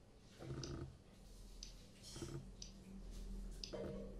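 Faint timing clicks from an earbuds delay-test app, played through boAt Rockerz 333 ANC Bluetooth neckband earphones, one about every second. Each click is timed against the app's on-screen pulse to check Bluetooth audio lag. Light handling rustles come in between.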